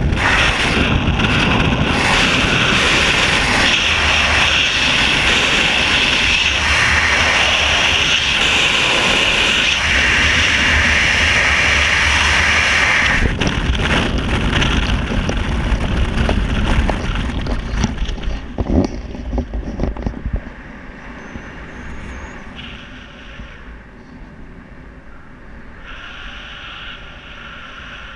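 Freefall wind rushing loudly over a skydiver's camera microphone, easing off about two-thirds of the way through with a sharp snap as the parachute opens, then much quieter wind under canopy.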